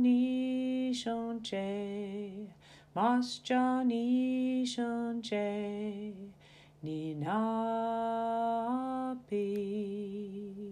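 A lone voice singing unaccompanied in slow, long-held notes with short breaths between, a verse of a song in the Ho-Chunk language about rain and water.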